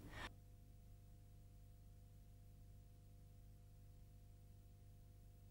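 Near silence, with only a faint steady hum of a few thin constant tones.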